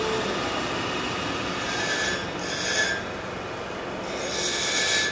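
Steel knife blade being ground on a spinning abrasive wheel: a steady running noise, with two bursts of high grinding hiss and a thin squeal where the blade bears on the wheel, about two seconds in and again near the end.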